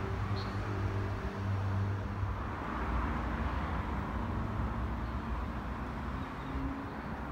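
Steady outdoor background noise of distant road traffic, with a low engine-like hum that fades after about two seconds.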